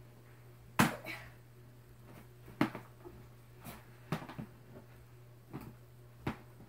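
Scissors snipping at plastic toy packaging: several separate sharp snips spread out, the loudest about a second in.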